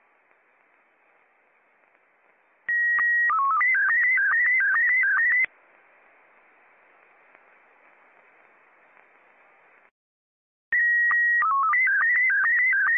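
Slow-scan television (SSTV) tones in Scottie 1 mode over shortwave radio, twice, with faint band hiss between. Each starts with a loud steady high tone and a short lower tone (the calibration header that announces the picture mode), then a fast warbling tone broken by regular short dips as the picture lines are sent. The first cuts off after about three seconds; the second starts near the end.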